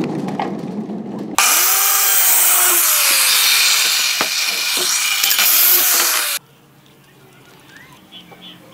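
A handheld electric circular saw runs and cuts through a wooden board for about five seconds, its pitch sagging under the cut, then stops abruptly.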